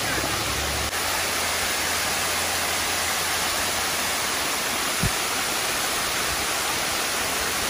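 Waterfall pouring down onto rocks close by: a steady, even rush of falling water.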